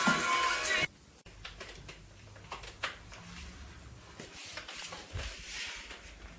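Background music that cuts off abruptly about a second in. It is followed by quiet room noise with a faint low rumble and a few scattered small clicks and knocks.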